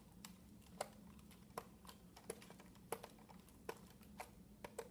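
Screwdriver turning out the small screw of a plastic toy blaster's battery door: faint, light clicks, about one every three-quarters of a second, as the driver is turned and regripped.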